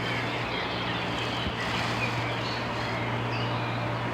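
Outdoor background noise: a steady low hum under an even hiss, with a few faint short chirps.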